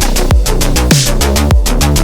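Electronic dance music with a fast, driving drum-and-bass beat: kick drums that drop in pitch, heavy bass and busy hi-hats.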